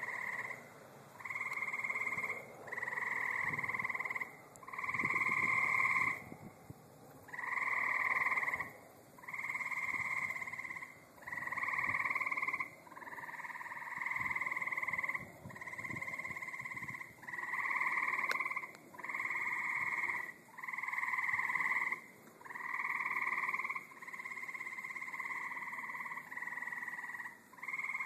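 Tree frogs calling at night: a steady run of calls, each about a second and a half long, repeating roughly every two seconds with short gaps between.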